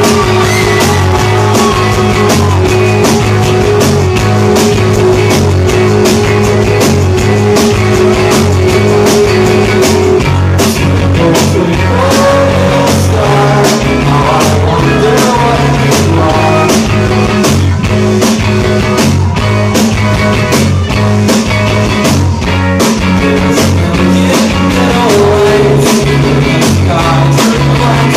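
Live indie rock band playing: electric guitars, bass guitar and drum kit over a steady beat. One note is held for about the first ten seconds, then a moving melody line takes over.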